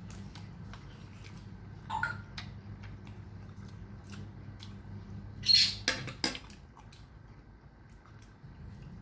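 Close-up eating sounds of a person eating with the hands: short wet mouth clicks and smacks while chewing, the loudest a sharp smack about five and a half seconds in, over a steady low hum.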